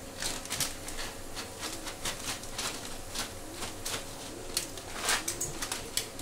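Scattered crinkles, crackles and clicks of hands handling crisp fried bread pakoras and plastic packaging. Under them is a faint low call that rises and falls, repeating every second or so.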